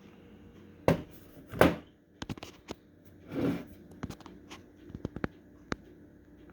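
Hands handling a new car stereo unit and its packaging: two louder knocks, then a run of small plastic clicks and a short rustle.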